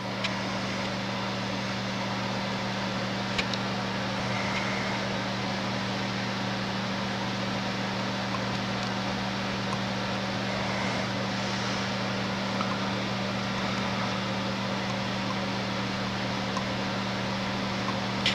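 A small metal lathe's electric motor running steadily, a constant hum with a whir over it. The dial indicator reading changes as the lathe runs.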